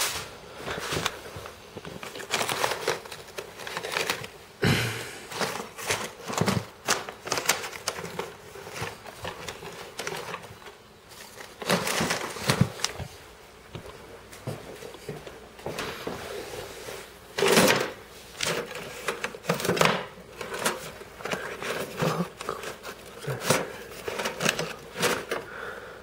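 Handling and rummaging noise: irregular knocks, clicks and rustles as things are moved about, with a few louder knocks scattered through.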